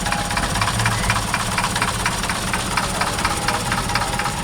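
An engine idling steadily, with a fast, even ticking.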